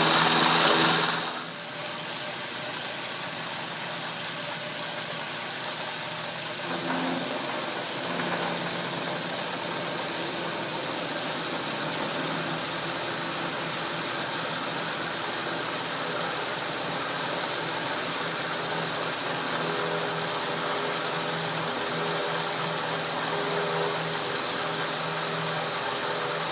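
Atlas lathe running with an end mill in its milling attachment, slotting strap iron. There is a steady motor-and-drive hum with a few held tones, and a louder, harsher cutting noise for about the first second before it settles.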